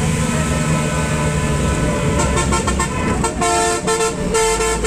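A vehicle engine running on the road, with a horn honking in several blasts, short and longer, over the second half.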